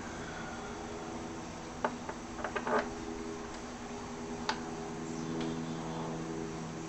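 Small metallic clicks and taps of bolts and hand tools being worked into an engine's intake plenum: a quick cluster of clicks about two seconds in and a single click past the middle, over a steady low hum.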